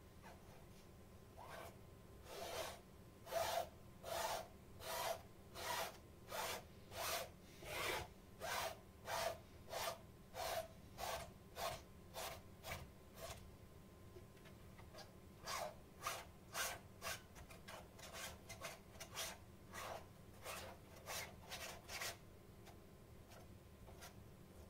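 Paintbrush strokes rubbing back and forth across a paint-covered canvas, about two strokes a second, with a short pause about halfway through.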